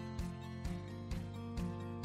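Quiet background music: held notes over a soft, steady pulse.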